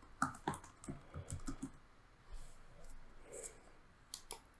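Computer keyboard typing: a quick run of about eight keystrokes over the first couple of seconds, then a couple of clicks near the end.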